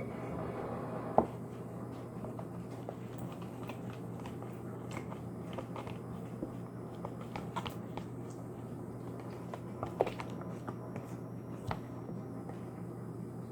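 Glue and gold paint being stirred together in a container: soft sticky squishing with scattered clicks of the utensil against the sides, and sharper taps about a second in and again about ten seconds in, over a faint steady hum.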